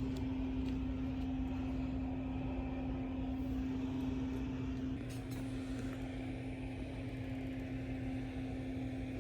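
A steady mechanical hum, one constant tone over a low rumble, easing slightly about five seconds in.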